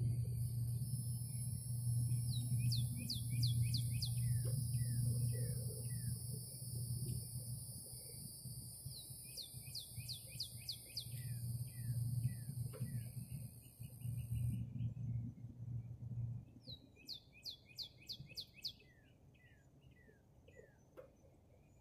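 Small birds calling outdoors: repeated short falling chirps and quick runs of high notes. Under them a steady low hum, the loudest sound, and a thin high whine run on; the whine cuts off about two-thirds of the way in and the hum stops soon after.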